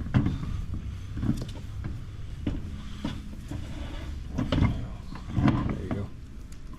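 Metal tools and wheel-hub hardware clunking: about half a dozen irregular knocks while a new wheel stud is drawn through the hub with a loose oversized nut.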